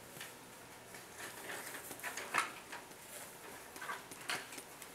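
Quiet classroom handling noise: paper worksheets and crayons being picked up and used, with scattered short rustles, scratches and small clicks, two of them a little louder about two and a half and four seconds in.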